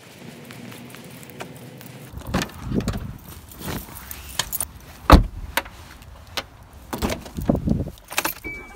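Getting into a car: a bag rustling and bumping, the car door shutting with a heavy thump about five seconds in, then keys jangling as the key goes into the ignition. A short electronic beep from the car comes near the end.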